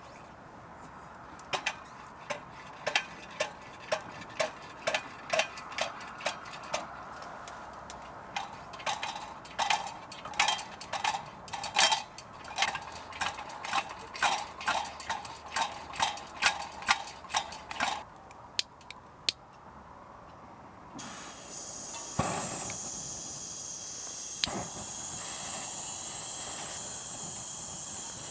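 Takei kerosene pressure burner being pumped up by hand, about two squeaky clicking strokes a second, then a steady hiss begins as the pressurised fuel is let out, with a couple of knocks.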